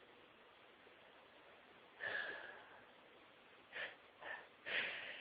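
A woman sniffing and drawing sharp, catching breaths as a sneeze builds: one longer breath about two seconds in, two short ones a little before four seconds, and another starting near the end.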